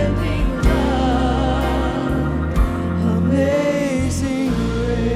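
Live contemporary worship music: a man and a woman singing into microphones over a band, with a steady bass and occasional drum hits.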